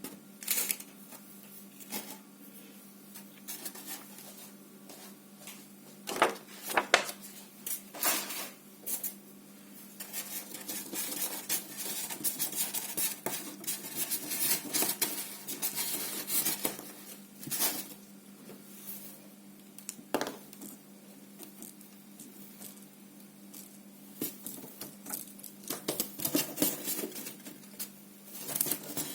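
Glossy slime being squeezed and kneaded by hand, with sharp clicks and pops of trapped air and denser crackling runs at times, over a faint steady hum.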